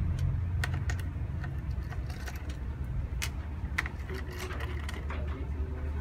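Small irregular clicks and taps of a screwdriver and screws against a laptop's plastic bottom case, about a dozen over the few seconds, over a steady low hum.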